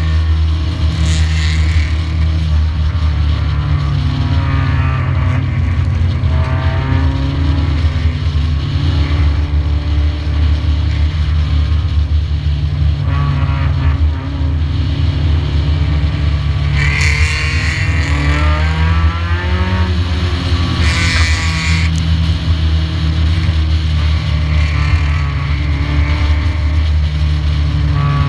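Stock car engine heard on board, running steadily with its pitch rising and falling through the laps, among other race cars close by. Twice in the later half a brief, higher-pitched hiss-like noise rises above it.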